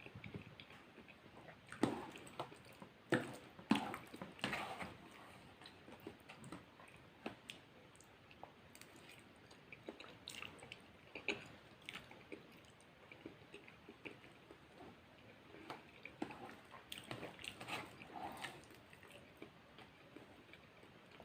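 A person chewing and eating close to the microphone, with wet mouth sounds and small smacks coming in irregular bursts and quieter pauses between bites.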